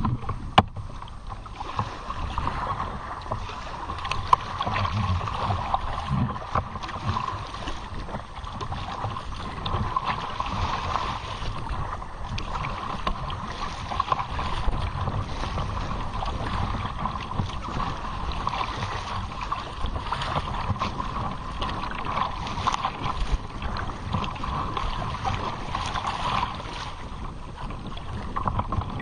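Water splashing and lapping against the bow of a sea kayak moving through choppy water, with many small irregular slaps. Wind rumbles steadily on the microphone underneath.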